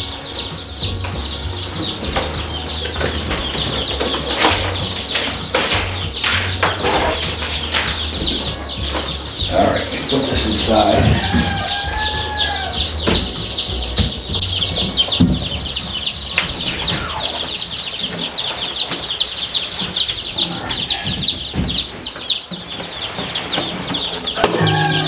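Day-old Black Australorp chicks peeping nonstop inside their cardboard shipping box: many high, falling cheeps overlapping at once. The box rustles and knocks as it is handled and opened.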